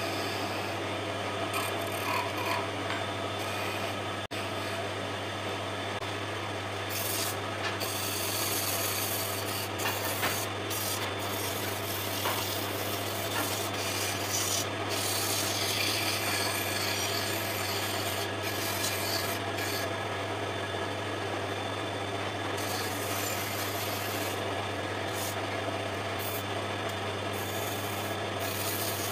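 Sandpaper rubbing against a wooden spindle spinning on a wood lathe: a continuous hiss that swells and fades with the pressure of the hands, over the lathe motor's steady hum. One sharp click about four seconds in.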